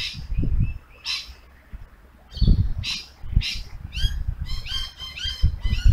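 Birds calling: a few harsh squawks, then a quick run of short chattering notes from about four seconds in, over low thuds of footsteps.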